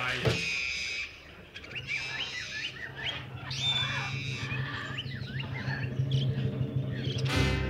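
A salsa track cuts off, then many short, quick bird chirps over a low steady hum, a recording played over the broadcast. Music starts again near the end.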